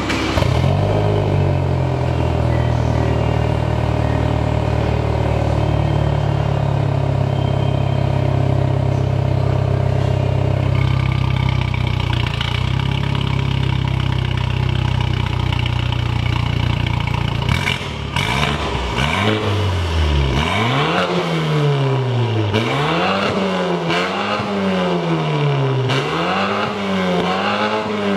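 BMW F10 528i running through an aftermarket Fi Exhaust with a catless downpipe and valved cat-back muffler, heard at its quad tailpipes. It holds a steady idle for about seventeen seconds, then is revved repeatedly in quick blips, each rising and falling in pitch, about one every second and a half.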